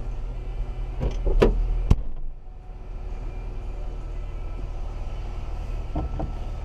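A 1999 Jeep Cherokee's engine idling steadily, while its rear liftgate is swung down with a few knocks and slammed shut about two seconds in. A couple of light clicks come near the end.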